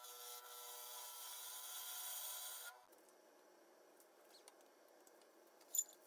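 Wood lathe running with a steady whine while a turning tool cuts the spinning cherry burl blank, a hissing scrape of shavings. It stops suddenly a little under 3 s in, leaving a faint rustle and one sharp click near the end.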